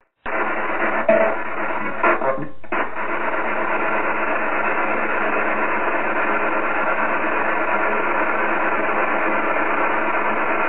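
Steady hiss of radio static from a handheld spirit box sweeping through stations, cutting in just after the start, with a few clicks in the first three seconds.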